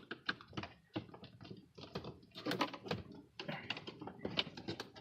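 A run of irregular small plastic clicks and taps as the old bulbs are worked out of an instrument cluster's back panel.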